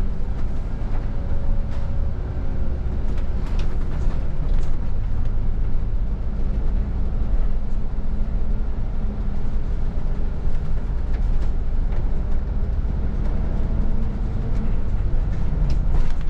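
City bus being driven, heard from the driver's seat: a steady low engine and road rumble with a faint engine whine over it.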